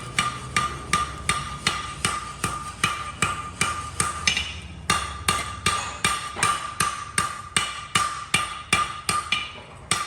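Hammer blows on steel over an anvil, forging a hoe: evenly paced strikes at about three a second, each with a bright ring. There is a brief pause a little after four seconds before the hammering resumes.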